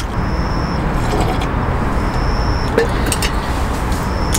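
A steady low rumble and hiss of background noise, with a few light clinks of a metal spoon against a bowl about three seconds in. A thin high tone comes and goes three times over it.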